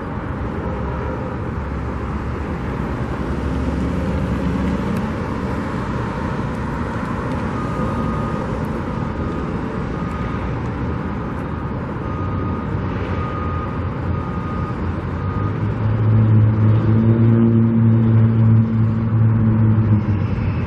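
Road traffic running steadily, with a vehicle's engine hum growing louder for the last few seconds as it passes close.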